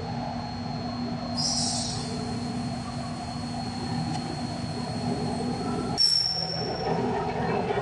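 Cozzoli GW24 semi-automatic vial washer running its wash cycle: a steady machine hum with a high whine, a short hiss about one and a half seconds in, and a sudden change in the running noise about six seconds in.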